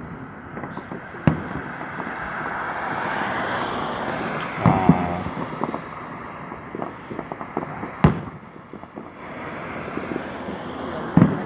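Fireworks bursting at a distance, single bangs a few seconds apart, about four in all, over a steady rushing background.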